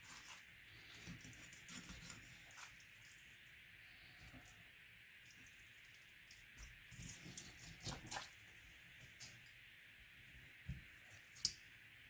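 Kitchen knife filleting a largescale blackfish on a wooden cutting board: faint scraping and crunching as the blade runs along the backbone and ribs, with a few sharper clicks about two-thirds of the way through and near the end, over a steady faint hiss.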